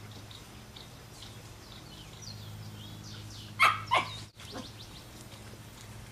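Two quick, sharp, high-pitched yips from a poodle, about a third of a second apart, a little past halfway through.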